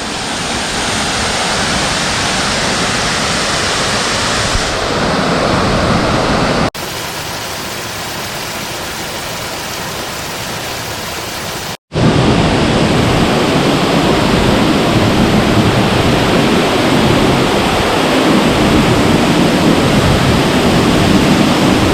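Waterfall: a steady, loud rush of falling water. About seven seconds in it drops abruptly to a quieter, thinner hiss, and about five seconds later it jumps back to the full rush.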